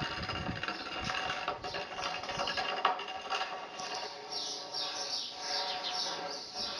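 Birds chirping in short, quick, falling calls, thickest in the second half, over a steady ambient bed. A few dull low thuds come near the start and a single sharp click just before the middle.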